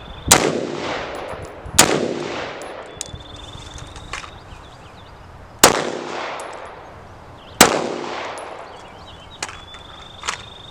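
Four gunshots in two pairs, each ringing out with a long echo: two about a second and a half apart, then after a pause of nearly four seconds, two more about two seconds apart. The first pair comes from a 16-inch AR-15 in 5.56 and the second from a pistol after a rifle-to-pistol transition. A few light clicks of gun handling fall between them.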